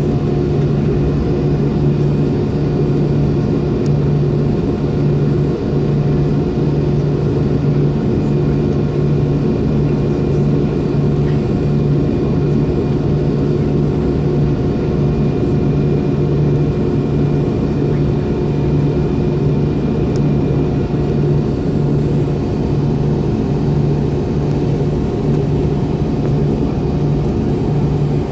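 An MD-90's IAE V2500 turbofan engines running at low power ahead of the takeoff spool-up, heard inside the cabin near the rear-mounted engines: a steady, loud drone with a low hum that wavers about once a second.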